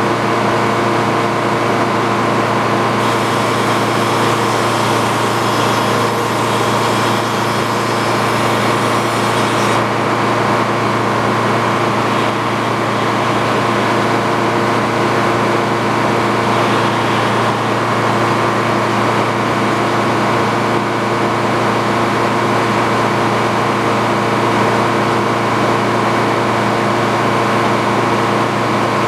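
A belt-driven saw rig's engine running steadily under power, with a stretch of extra high hiss for several seconds near the start.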